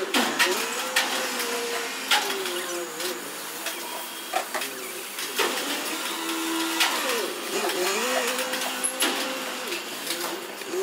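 Sharp metallic clinks and taps at irregular intervals as steel parts are handled and set against one another, over a wavering tone that glides up and down.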